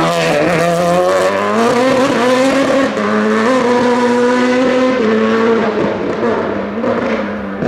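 Turbocharged 1,155 cc four-cylinder engine of a Citroen Saxo hill-climb race car under hard acceleration as the car passes and pulls away. Its pitch climbs over the first two seconds, dips briefly about three and five seconds in, then the sound fades as the car goes into the distance.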